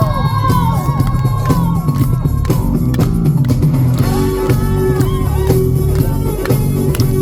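Trot song backing music in an instrumental passage between sung lines: a steady drum beat and heavy bass under a bending lead melody.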